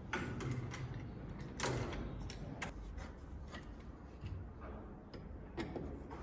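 Irregular clicks and light knocks of a door lock and handle set being pressed into place and screwed onto a metal door frame, the loudest knock about one and a half seconds in.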